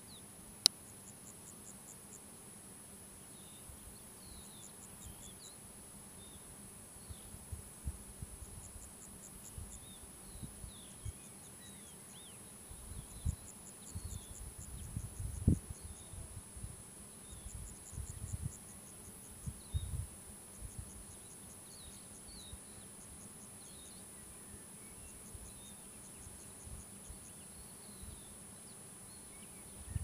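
Insects chirping in short trains of rapid high ticks, repeated every second or two over a steady high-pitched hum, with faint bird chirps scattered through. Bursts of low rumble come and go through the middle, and there is one sharp click about a second in.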